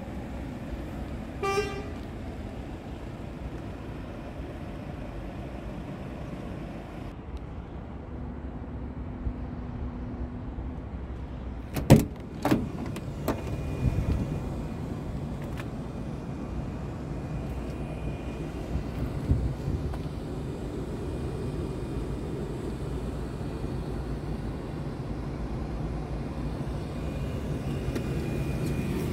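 Steady low rumble of a vehicle in a truck yard, with a short beep about a second and a half in. Around the middle come a couple of sharp clicks and knocks, like a truck cab door being opened.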